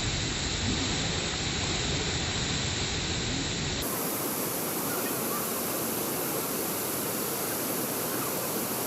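Steady rush of flowing water. About four seconds in the sound changes abruptly, losing its low rumble and gaining more hiss, as at a cut between two recordings.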